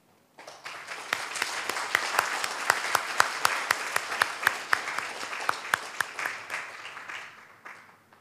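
Audience applauding. The applause starts about half a second in, with single sharp claps standing out, then thins and dies away near the end.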